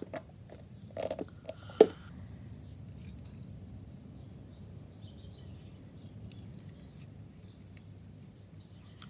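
Plastic scale-model parts being handled as engine bearers are fitted into a nacelle assembly: a few small clicks and taps in the first two seconds, one sharper click just before two seconds in, then faint handling sounds.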